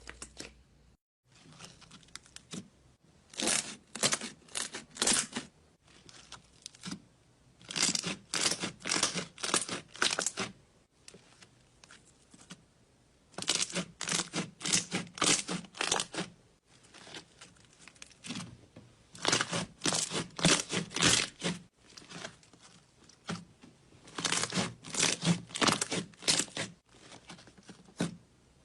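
Slime being squeezed and pressed by hand, making bursts of quick, sticky clicks and pops, several a second, with short pauses between the bursts.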